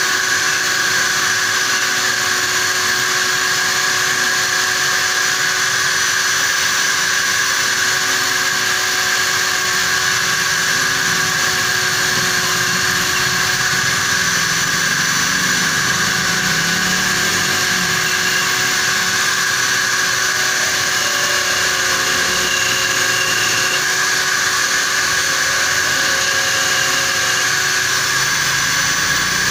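Corded electric drill clamped in a bench vise, running steadily with a constant motor whine. It serves as a makeshift lathe: a hand-held tool scrapes against the spinning bolt as it is turned down into a PCP valve, with a few short squeals in the second half.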